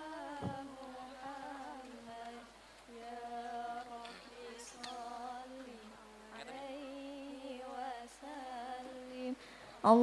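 Faint singing of a slow sholawat melody by one voice: held notes with vibrato in several short phrases with brief gaps. A single low thump about half a second in.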